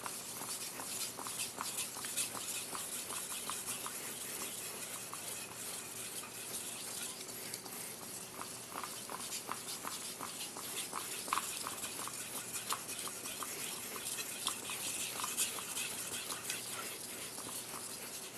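Gyuto knife's edge stroked over a finer-grit whetstone: a steady run of short, closely repeated scraping strokes, worked from tip to heel.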